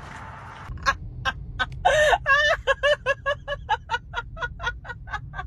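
An animal giving a rapid run of short, pitched calls that starts about a second in and settles to about four a second, over a steady low rumble.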